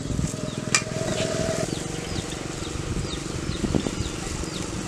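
A bird chirping over and over: short, high, falling chirps, two or three a second, over a steady outdoor background, with one sharp click about a second in.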